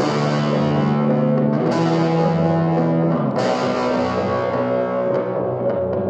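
Electric guitar played through effects with light distortion: slow chords struck about three times, roughly a second and a half apart, each left to ring on in long sustained notes.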